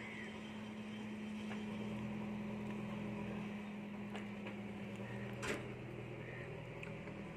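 Coupled locomotive running at a steady hum with a low held drone. One sharp knock about five and a half seconds in, from the coupling work at the buffers.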